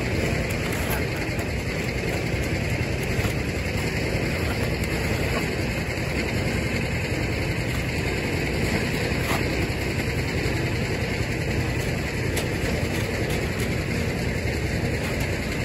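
An engine idling steadily, with a few faint clicks over it.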